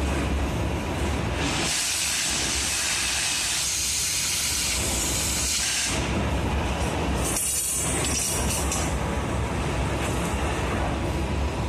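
Oxy-fuel cutting torch hissing as it flame-cuts a curve through steel plate. The hiss swells louder and brighter twice, for several seconds from about a second and a half in, and again briefly about seven seconds in.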